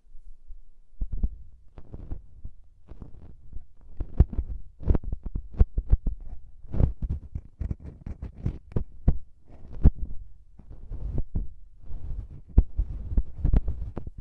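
Cotton pads brushed and swished directly against the microphones of a Tascam recorder, a continuous run of quick, irregular strokes, each with a dull low thump from the contact.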